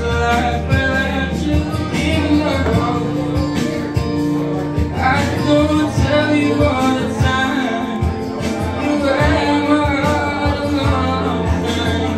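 A man singing into a microphone over a backing track with a steady beat, both amplified through PA speakers.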